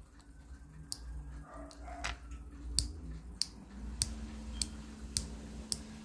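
Small plastic rocker switch clicking as it is rocked back and forth by hand, freshly reassembled: a run of sharp, light clicks about one every half second, starting about a second in.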